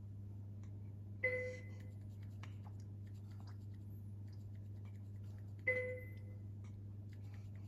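Two sharp clicks, about four and a half seconds apart, each followed by a short ringing tone that fades within half a second, over a steady low electrical hum.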